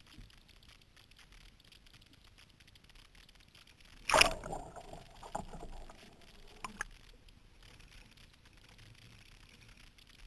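Sea kayak capsizing in a deliberate roll: one loud splash about four seconds in as the boat goes over, then splashing and gurgling water for a couple of seconds, a smaller splash a little later as it rolls back up, and low water noise either side.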